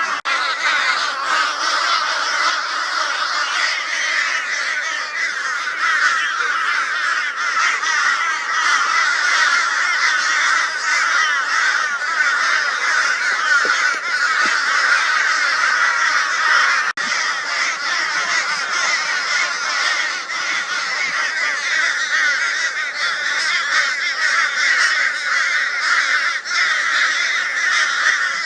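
A flock of crows giving loud, harsh, raucous calls without a break, many birds at once overlapping into a continuous din. This is mobbing calling, the alarm the crows raise at a barn owl.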